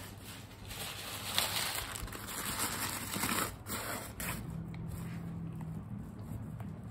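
Bubble wrap crinkling and crackling as it is pushed down into a leather bucket bag, in a run of scratchy bursts over the first four seconds or so.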